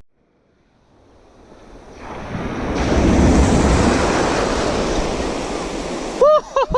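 Ocean surf: a wave rushes in, building to a peak and slowly easing off, with some wind on the microphone. Near the end, a quick run of short squeaky chirps that rise and fall in pitch.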